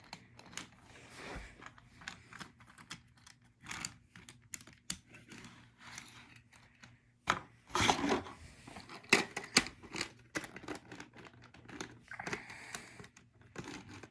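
Light plastic clicks and rattles of N scale model boxcars being handled and set onto the track behind a small switcher locomotive, with a busy run of louder clicks about halfway through.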